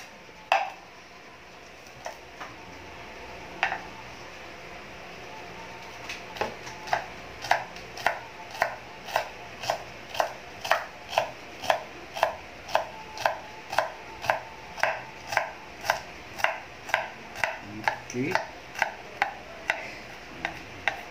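Kitchen knife chopping celery on a thick wooden cutting board. A few scattered knocks come first, then from about six seconds in a steady run of about two chops a second.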